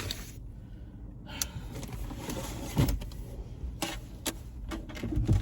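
Handling noise as a stand is set up: scattered clicks and knocks with some rustling over a low rumble.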